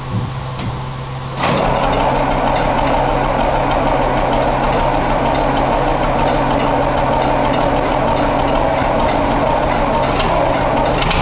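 John Deere 4630 tractor's six-cylinder turbo diesel being cold-started after standing a month in freezing weather: a low hum gives way abruptly, about a second and a half in, to the loud, steady sound of the engine turning over and running.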